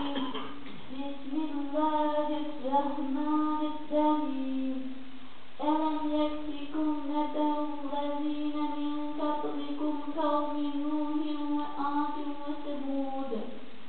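A child's high voice chanting solo in long, melodic held phrases, with short breaks for breath about five and a half seconds in and near the end.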